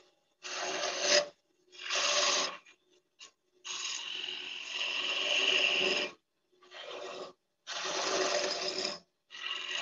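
A turning gouge cutting into wood spinning on a lathe, in about six separate passes of one to two seconds each with short pauses between, as a section of the workpiece is narrowed down.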